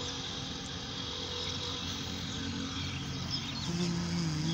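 Steady outdoor background noise, an even hiss-like hum with no clear single source, with a short low hum near the end.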